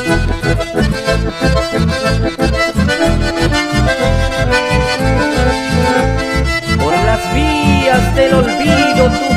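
Instrumental break of a song: a sustained lead melody over a steady bass beat, with sliding melodic notes coming in near the end.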